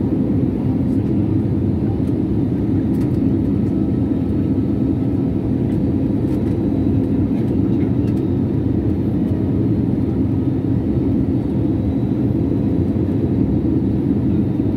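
Steady cabin roar of a jet airliner descending on approach, heard from a window seat beside the wing-mounted turbofan engine: an even, deep rush of engine and airflow noise with a faint steady hum.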